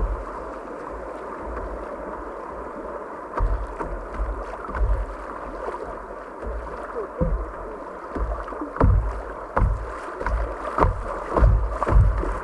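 Kayak moving down a river: a steady rush of moving water with irregular paddle splashes and knocks, coming more often and louder in the second half.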